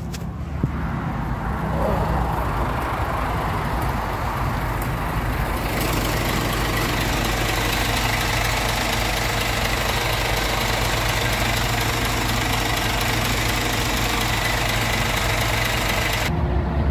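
Lorry's diesel engine idling steadily, with a broad rushing noise that builds over the first few seconds and then holds.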